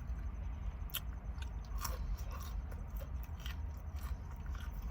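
A person chewing and biting fried chicken tenders, with a few crisp crunches scattered through, over a steady low hum.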